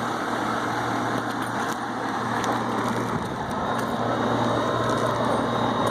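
Steady machine hum with a constant low drone and a steady rush over it, no strokes or changes.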